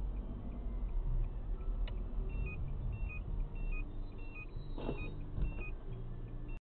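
Low engine and road rumble from a moving car, with a repeating two-note electronic beep about twice a second from about two seconds in. There is a single click, and a short knock a little before the end, after which the sound cuts off abruptly.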